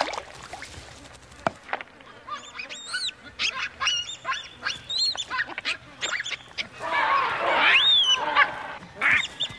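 Baboons screaming: a run of short, high calls that rise and fall in pitch, getting louder and harsher around seven to eight seconds in.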